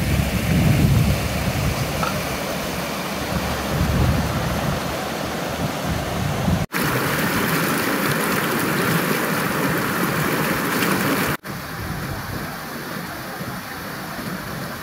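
Fast mountain river rushing over rocks and stones, a steady noisy rush. It drops out briefly twice, about seven and eleven seconds in, and its tone shifts a little after each break.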